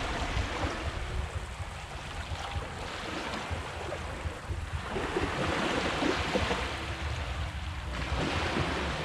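Small waves washing up on a sandy beach, the foamy water hissing over the sand, with a low rumble underneath. One wash comes in at the start and a bigger, louder one from about five seconds in.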